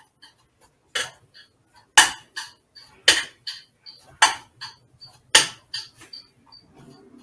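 A utensil knocking against a pot about once a second, with lighter clinks between, as strained spaghetti is tossed with olive oil, seasoned salt and garlic.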